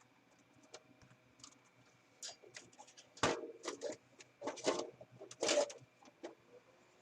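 Plastic clicks and scrapes as the front panel of a Panasonic stereo system is forced off its catches, with a few louder snaps in the second half.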